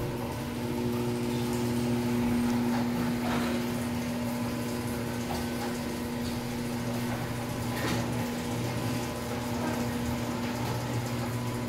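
Overhead Door model 100A garage door opener running as it raises a sectional garage door: its AC motor hums steadily under the rattle of the drive and door. It starts suddenly and stops near the end, the unit freshly adjusted and cleaned up.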